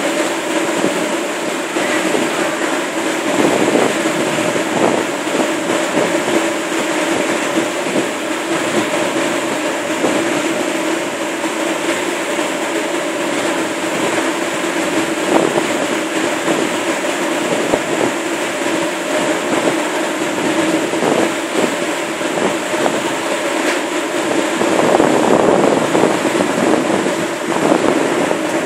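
Steady rush of churned water and wind from a pilot boat running alongside a moving ship, under a constant engine drone with no let-up.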